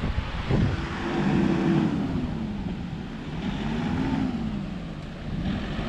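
Engine of a small box truck revving up and down repeatedly as it strains against a tow strap on wet grass. It fails to move the heavy, non-starting truck camper.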